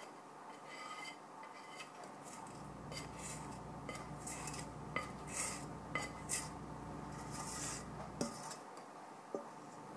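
A spatula scraping chocolate cake batter against a dish in a run of short strokes, with a light clink or two near the end.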